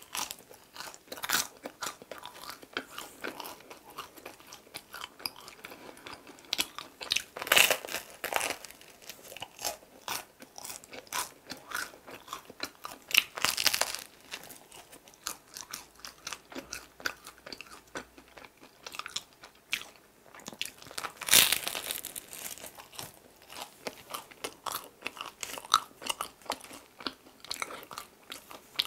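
Close-miked biting and chewing of an onion bagel filled with onion cream cheese: the crisp crust crunches at each bite amid chewing, with the loudest bites about eight, thirteen and twenty-one seconds in.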